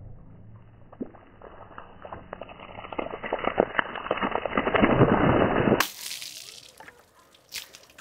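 Water thrown from a bucket splashing and running across a freshly sawn silver maple slab, building to its loudest about five seconds in and cutting off suddenly. A shorter splash follows near the end as a second bucket is poured onto the slab.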